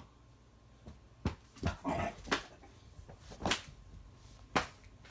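A dog whimpering briefly about two seconds in, among five short, sharp clicks spread over a few seconds.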